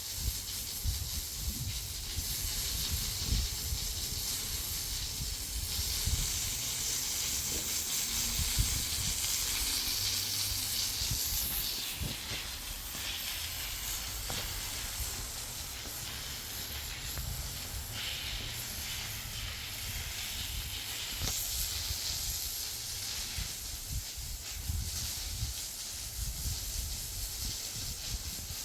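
A steady hiss with a low rumble underneath and irregular soft thumps.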